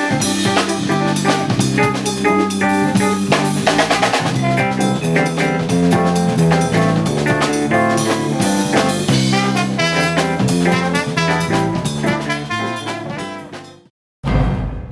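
Jazz band playing with a busy drum kit under pitched instrument lines. The music fades out near the end, and a low rumble follows.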